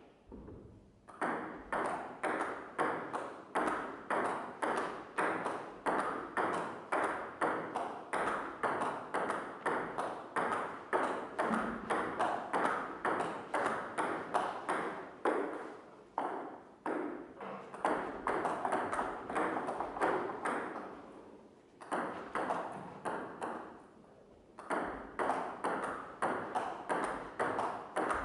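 A rapid, even series of ringing strikes, about three a second, each dying away quickly, with a few short breaks in the run.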